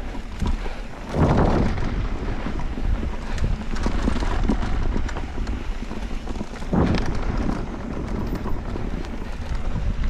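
Wind buffeting the GoPro microphone and mountain-bike tyres rumbling over a dirt trail during a descent. Two louder surges come, one about a second in and another near seven seconds.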